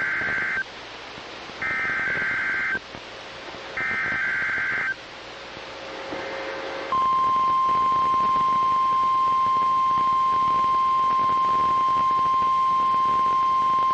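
NOAA Weather Radio alert signal: three short bursts of warbling digital data tones (the SAME header), each about a second long and two seconds apart, then a pause. About seven seconds in, the steady 1050 Hz warning alarm tone starts and holds.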